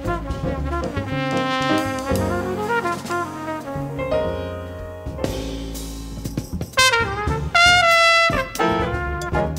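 Jazz trumpet solo, a run of melodic phrases backed by piano, double bass and drums, growing louder about seven seconds in.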